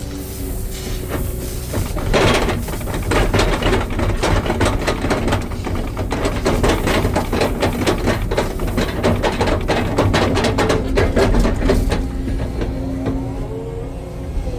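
Hitachi excavator running steadily, with a dense clattering rattle from about 2 seconds in until near the end, when it eases off.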